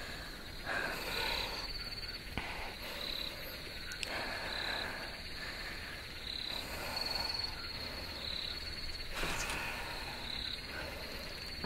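Night ambience of chirping insects and frogs, with a short high chirp repeating about once a second over a faint steady hiss.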